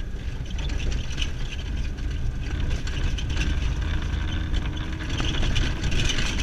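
Car driving on an unsealed gravel road, heard from inside the cabin: a steady low engine and tyre rumble with a gritty hiss of tyres on gravel that grows a little louder near the end.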